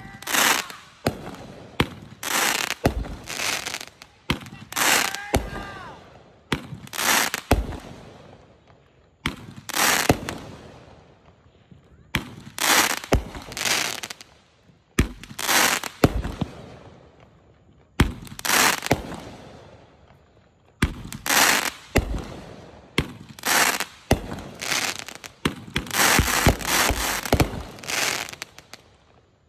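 The "Touchdown" consumer firework cake firing a long run of aerial shots, roughly one or two a second. Each shot is a sharp report followed by a short crackling tail. The shots come in a dense volley near the end, then stop.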